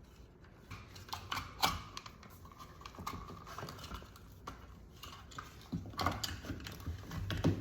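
An electrical outlet box being pushed and fitted into a hole cut in a wooden kitchen island cabinet: scattered clicks and knocks of handling, the sharpest about one and a half seconds in and a cluster near the end.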